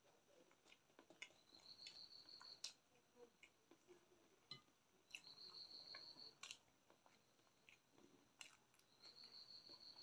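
Faint close-up eating sounds: chewing, with soft clicks and squishes of fingers mixing curried rice on a steel plate. A faint high-pitched tone about a second long recurs three times.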